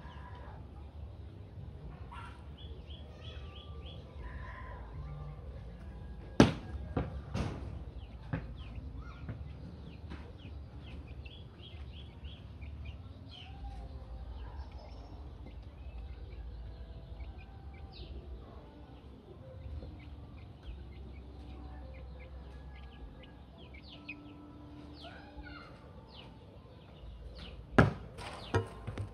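A volleyball being hit and bouncing: a few sharp smacks about six to eight seconds in, and again near the end. Between them, birds chirp and chickens cluck in the background.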